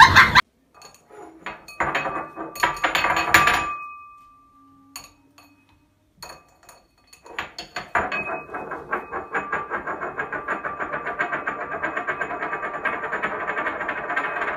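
Small white ceramic bowl spun on a kitchen countertop by an African grey parrot, rattling quickly with a faint ring as it wobbles. There is a short spin of under two seconds, then, after a pause, a longer spin from about eight seconds in.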